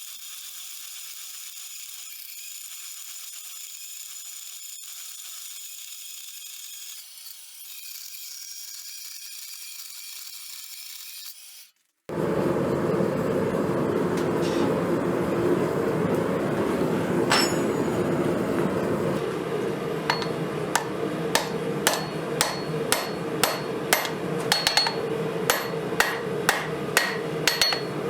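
A faint steady high whine for about the first twelve seconds, then a sudden cut to a loud steady roar. From about twenty seconds in, hammer blows on steel ring out at about two a second over the roar, forging the steel of a broken Crescent wrench.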